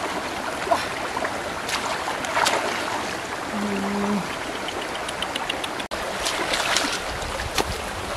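Shallow stream running over rocks, a steady rushing and trickling of water, with a few small clicks and knocks and a short low hum about halfway through.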